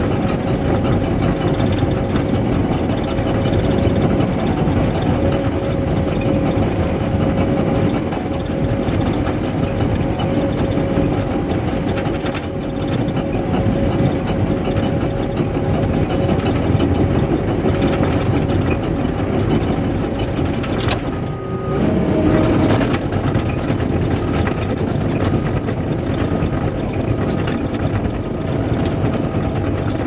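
Cat D5K LGP bulldozer's diesel engine running steadily under load as the blade pushes dirt, heard from inside the cab with a constant whine over it. About two-thirds of the way through, a click and a brief drop in level come just before the whine shifts to a different pitch.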